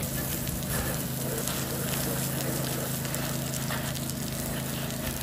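Water jet from a pressure-washing wand hissing and spattering against a gas station canopy during the rinse, over a steady low machine hum.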